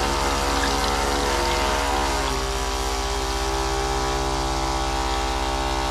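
A 12-volt, 70-watt water pump running steadily, with an electric hum and a fast, even pulsing beat. Water runs from a tap into a plastic bowl as the pump recirculates it.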